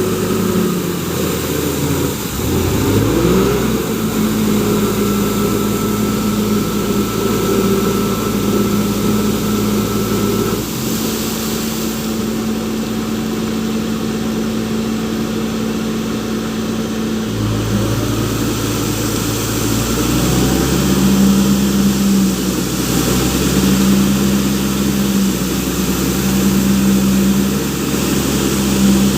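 Case Super M backhoe loader's diesel engine running, its speed stepping up and down several times.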